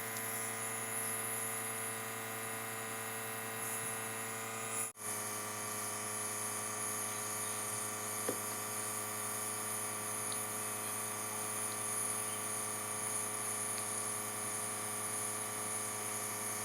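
Compressor nebulizer running during a child's breathing treatment: a steady motor hum with a high hiss of mist. It briefly drops out about five seconds in.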